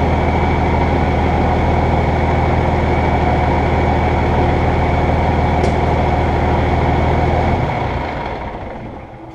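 Ram pickup's Cummins turbo-diesel inline-six idling steadily, fading out near the end.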